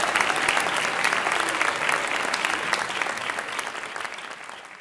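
Audience applauding, the clapping gradually fading out toward the end.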